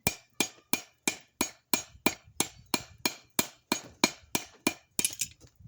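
Blacksmith's hammer striking steel on an anvil in a steady rhythm, about three blows a second, each with a short metallic ring. The hammering stops shortly before the end.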